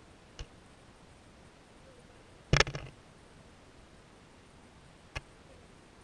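Faint steady hiss recorded underwater in a stream, broken by a few sharp clicks: one small click, then a loud quick cluster of three or four clicks, then a single click near the end.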